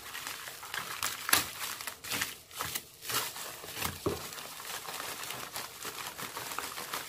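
White plastic courier mailer bag being torn open and crumpled by hand: irregular crinkling and rustling with sharper crackles.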